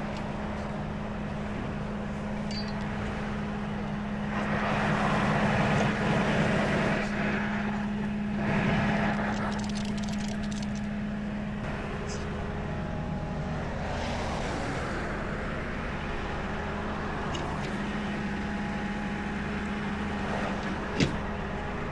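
Roadside traffic passing close by over the steady hum of an idling engine, with two vehicles rushing past a few seconds in; a short sharp click near the end.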